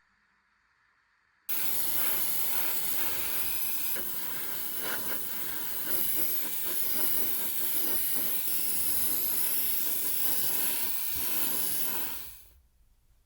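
A steady spraying hiss that starts about a second and a half in and cuts off near the end.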